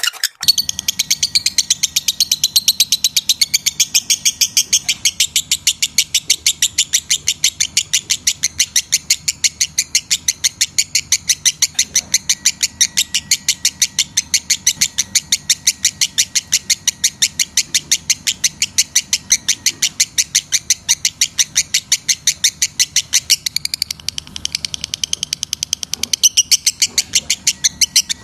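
Lovebird chirping in a fast, unbroken string of sharp, high, evenly repeated notes, about five a second. This is the kind of call played to lovebirds to bring them into breeding condition.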